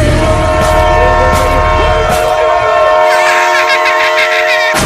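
A train horn sounding one long steady blast of several tones together, rising briefly at the start and cutting off suddenly near the end. A low rumble underneath fades out about two seconds in.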